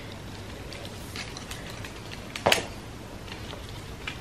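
Light clicks and rattling of a Vivitar aluminium tripod's legs and plastic leg locks being handled, with one sharp snap about two and a half seconds in.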